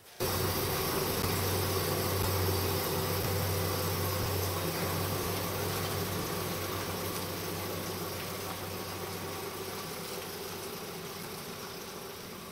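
Toyota Carina TA60's engine running steadily, a low hum that starts abruptly just after the start and slowly gets quieter.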